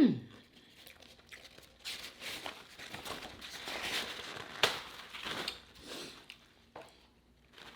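Paper sandwich wrapper crinkling and rustling as it is handled, with one sharper crackle about midway.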